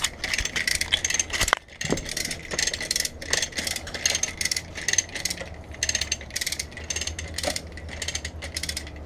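Ratchet pawl of a hand-operated hoist clicking rapidly and steadily as it is worked to take up the weight of an engine, with a low steady hum underneath.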